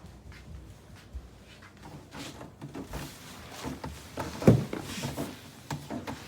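Soft rustling and light knocks of movement, with one heavier thump about four and a half seconds in.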